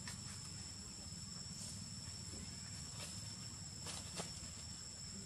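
Insects trilling in two steady, unbroken high-pitched tones over a low background rumble, with a few faint clicks about three and four seconds in.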